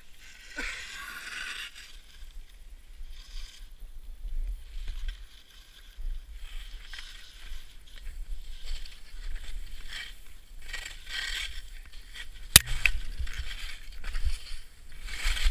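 Skis swishing and scraping through snow in a run of turns, with a low wind rumble on the microphone. A single sharp click about three-quarters of the way through.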